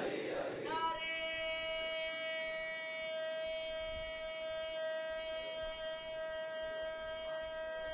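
Public-address feedback: a steady high-pitched tone held unwavering for about seven seconds, cutting off suddenly. The tail of a crowd's chant dies away in the first second.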